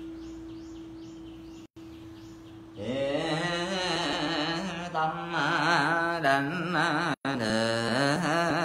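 Vietnamese Buddhist liturgical chanting. A low steady hum fades for the first few seconds, then about three seconds in a chanted melodic line enters, its pitch wavering and slowly bending up and down.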